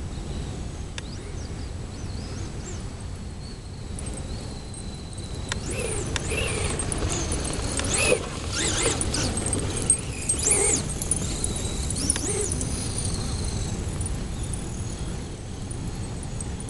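Traxxas Slash 2WD RC truck's Castle 3600kv brushless motor whining, rising and falling in pitch as the truck speeds up and slows, loudest through the middle stretch. A steady low rumble runs underneath.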